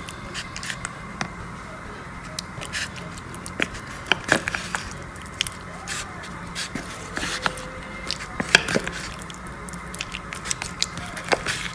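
A metal spoon mixing oil into marinated raw chicken pieces in a plastic container: scattered clicks and scrapes of the spoon against the container, over a steady background hum.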